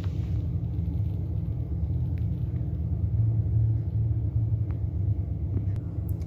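Steady low background rumble, with a few faint clicks over it.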